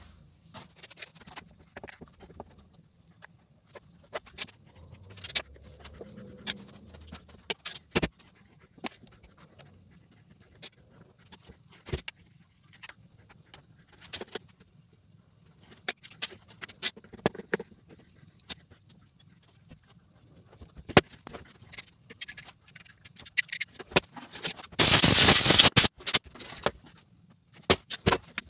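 Irregular small clicks, taps and knocks of hand tools and chainsaw parts being handled on a metal workbench while the hex-socket bolts of a chainsaw's handle and starter housing are unscrewed. Near the end there is a louder clatter lasting about a second.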